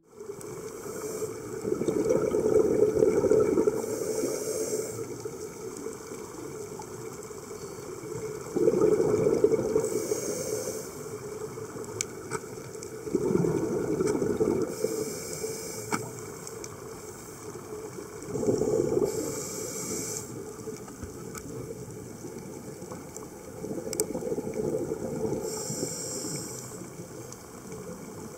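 A scuba diver breathing through a regulator, heard underwater: about five breath cycles, each a low rush of exhaled bubbles followed by a short high hiss of the regulator, roughly every five to six seconds. A few faint sharp clicks sound in between.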